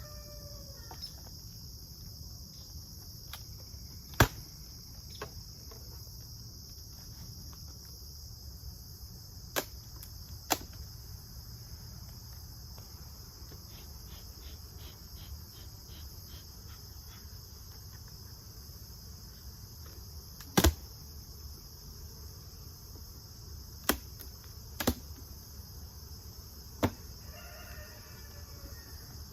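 Crickets chirping steadily in a continuous high-pitched chorus, with a handful of sharp knocks scattered through.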